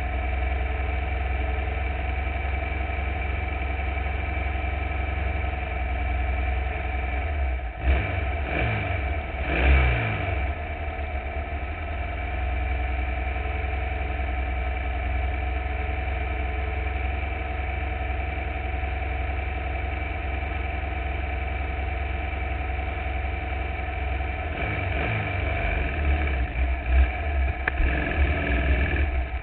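Formula Vee's air-cooled Volkswagen flat-four engine idling steadily, blipped twice about a third of the way in. Near the end the revs rise and fall unevenly as the car starts to roll away.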